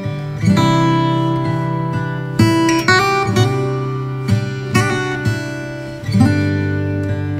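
Instrumental background music: a guitar plays chords that ring on, with a new chord struck every second or two.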